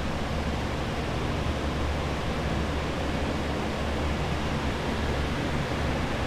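Steady rushing of water-damage drying equipment, red air movers blowing and a commercial dehumidifier running, with a constant low hum underneath.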